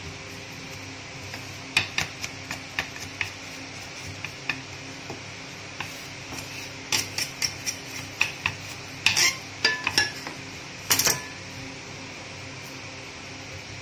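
Irregular sharp taps and clacks of a wooden ruler knocking against a marble countertop as it presses the sides of a log of cookie dough square, growing louder and closer together before stopping a few seconds before the end, over a steady low hum.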